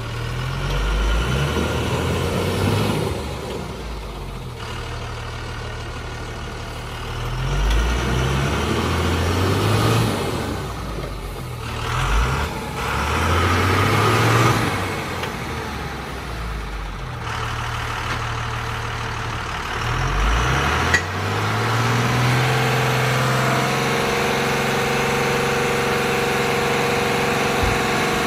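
Loaded Tata 1618 4x4 tipper truck's diesel engine revving up and dropping back again and again as the truck strains in mud. About three-quarters of the way through there is a sharp click, then the engine holds a steady, higher speed while the hydraulic hoist raises the tipper body.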